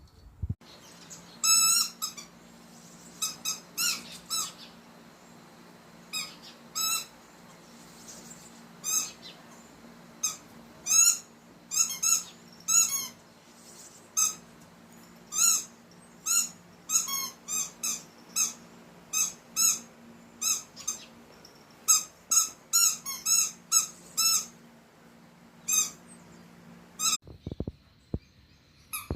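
A pet making many short, high-pitched squeaky calls in irregular runs. A steady low hum runs under them and stops near the end.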